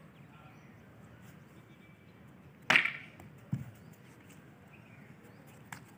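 A bamboo silambam staff swished once through the air a little under 3 s in, followed about a second later by a softer low thump.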